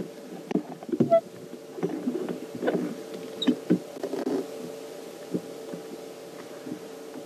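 Two young bull elephants sparring: a string of irregular knocks and thuds, bunched in the first four or five seconds, as tusks and heads meet. A steady low hum runs underneath.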